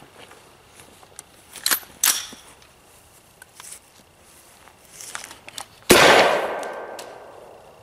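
A single loud shot from an AR-style beverage-can launcher firing a full can of beer, about six seconds in; the report trails off over about two seconds. Before it, a couple of sharp clicks a little under two seconds in.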